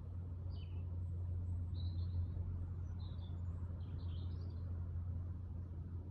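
Small birds chirping, a handful of short high calls in the first few seconds, over a steady low rumble that is the loudest sound.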